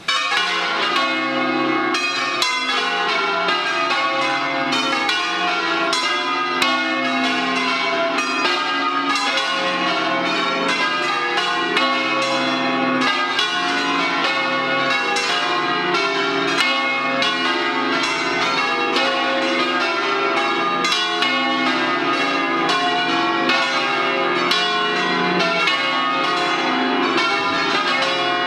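Several church bells in a tower ringing a solemn peal, swung by an electric drive rather than by rope, their strikes falling many times a second and overlapping into a continuous clangour. The ringing starts abruptly at the beginning.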